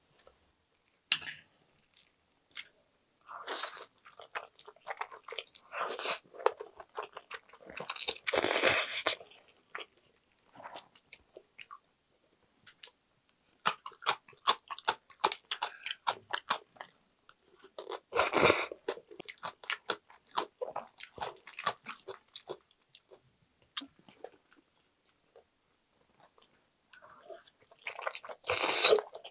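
Eating sounds: chewing of a steamed dim sum dumpling and chewy jjolmyeon noodles, with many short mouth clicks. Louder noisy stretches come now and then, the last near the end as a mouthful of noodles is slurped in.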